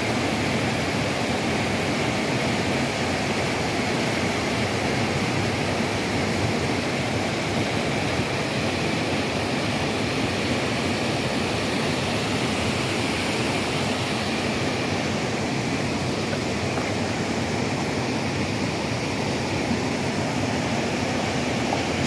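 A small waterfall cascading over rocks into a shallow stream, a steady, unbroken rush of falling water.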